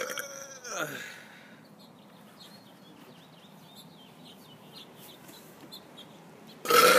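A man burping: a burp right at the start that drops in pitch and dies away within about a second, then, after a quiet pause, a second loud, long burp starting near the end.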